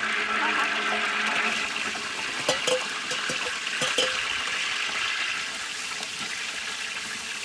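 Sliced onions frying in hot oil in a large metal cooking pot: a loud sizzle that starts suddenly as they are tipped in and slowly eases off. A few sharp knocks of the metal ladle and bowl against the pot come around the middle.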